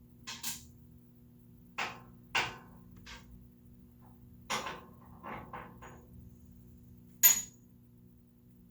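Metal tools and parts being handled during a table saw blade change: a run of irregular clanks and knocks, with a sharp, ringing metallic clink near the end.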